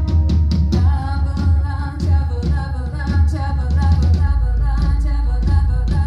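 Live metal band playing: a woman sings the lead melody over a heavy, boomy bass and drums.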